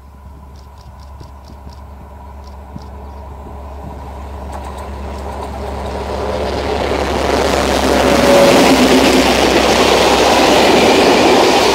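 Diesel-hauled passenger train approaching and passing close by: the locomotive grows steadily louder for about eight seconds, then the coaches roll past with loud, steady wheel and rail noise.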